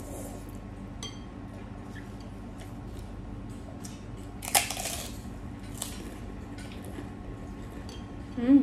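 Close-up eating sounds: wet mouth clicks and chewing, with one loud crunchy bite into a piece of fruit about four and a half seconds in. A brief hum of the voice near the end.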